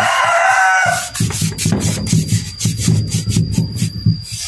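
A paint brush scrubbing back and forth along the edge of a wooden table in quick strokes, about four or five a second, spreading a wet coat of water-based sanding sealer. A rooster crows in the background during the first second.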